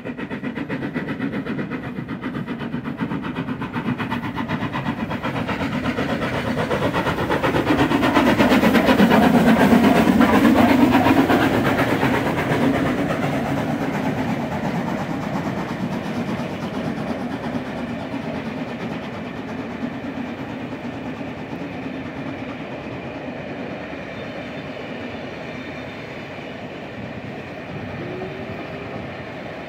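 LMS Royal Scot class 46100's three-cylinder steam locomotive working past with a rapid, even exhaust beat, loudest about eight to eleven seconds in as the engine goes by. The coaches then roll past on the rails, slowly fading.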